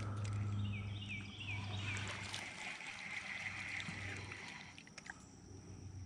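Creek ambience: running water of a shallow stream, with a low steady hum that fades out over the first few seconds. About a second in comes a quick run of five or six short falling chirps, and a thin high whine carries on over it all.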